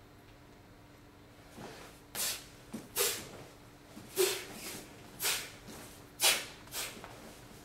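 A martial artist's sharp, hissing exhalations timed with strikes during a form. They start about a second and a half in and come as about six strong breaths with a few weaker ones between, some with a short grunt.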